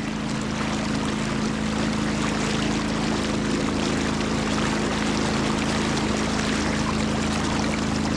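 A motor hums steadily over the continuous rush of river water.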